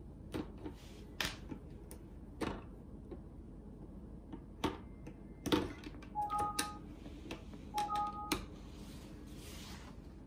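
Sharp clicks and knocks from hands working a Wockoder all-in-one turntable's tonearm and control knob, with two short rising two-note electronic beeps from the unit about six and eight seconds in.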